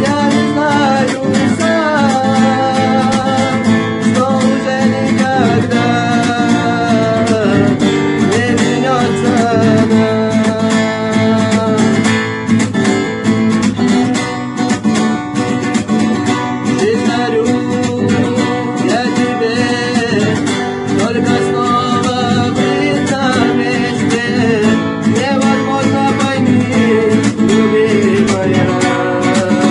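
A song on acoustic guitar: strummed accompaniment with a gliding melody line over it.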